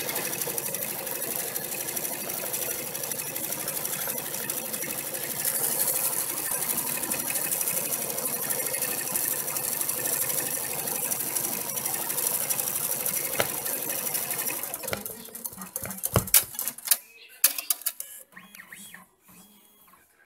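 Multi-needle embroidery machine stitching at speed, with a steady rapid needle chatter. About fifteen seconds in, the steady run stops and gives way to a few sharp clicks and knocks.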